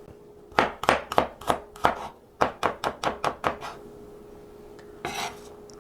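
Kitchen knife slicing garlic cloves on a cutting board: two quick runs of sharp knocks, about four or five a second, with a brief rustle near the end.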